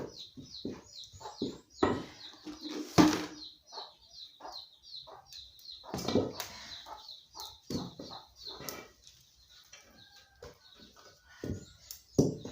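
Irregular knocks and scrapes of ugali being stirred and pressed in a pot, with a bird chirping behind in quick runs of short falling notes.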